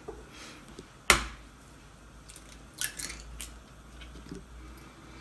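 An egg shell cracked sharply against the rim of a glass bowl about a second in, then a few lighter clicks and ticks of shell as the egg is pulled open and the yolk is separated from the white.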